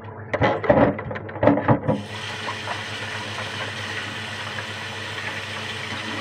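Brief talk, then about two seconds in a steady rush of water from a tap starts and runs evenly.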